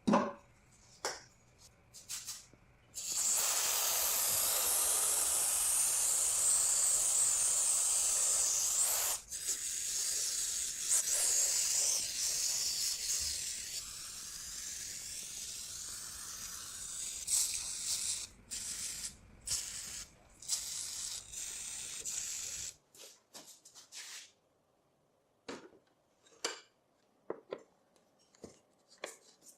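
Aerosol lubricant can spraying onto the bolts of a rusty mini dirt bike: one long hiss of about six seconds, then a string of shorter sprays. After the spraying stops, a few short clicks and knocks follow near the end.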